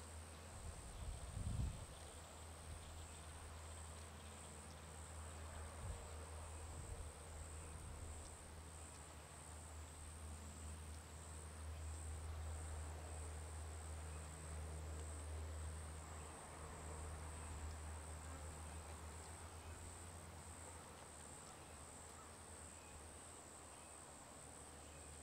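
Faint background: a steady low hum and a thin, steady high-pitched whine that wavers slightly, with a soft knock about a second and a half in.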